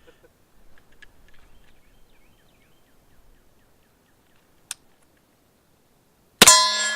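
A single suppressed shot from a 9mm CZ Scorpion Evo pistol with a Dead Air Ghost 45M silencer, about six seconds in, followed straight away by the ringing clang of the steel target it hits. The steel's ring is the loud part, and it fades out over about a second. A short sharp click comes about a second and a half before the shot.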